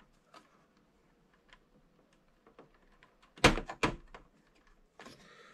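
Faint handling ticks, then two sharp clicks about half a second apart a little past the middle, as the keyboard's flat cable is pushed into its connector on the MSX computer's board.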